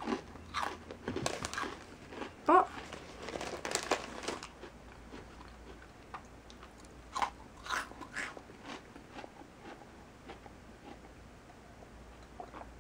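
Close-miked eating sounds: a cookie being chewed and crunched, with swallows and a sip from a mug. The sounds come thick and loud in the first four seconds, the loudest about two and a half seconds in, then thin out to a few small mouth clicks.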